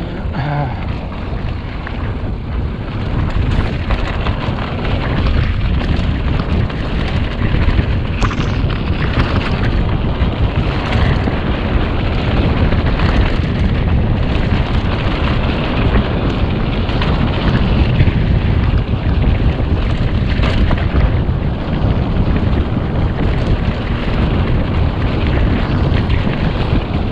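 Mountain bike descending a rough dirt trail: heavy wind rumble on the microphone, with frequent knocks and rattles from the bike over the bumps. It grows louder over the first few seconds.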